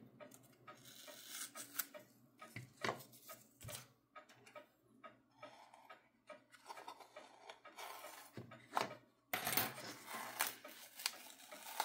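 Faint handling sounds of blue masking tape being peeled and lifted with a hobby knife on a small wooden model building: soft rubbing and rustling with scattered light clicks, growing busier near the end.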